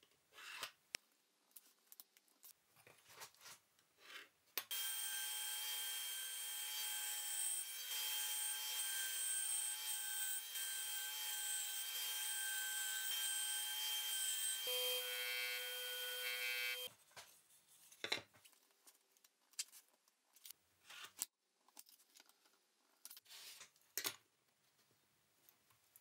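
Woodworking bandsaw running and cutting through a stack of plywood squares: a loud, steady whine with several held tones for about twelve seconds, changing tone shortly before it stops. Before and after it, short scratches and taps of a pencil marking the plywood along a metal combination square.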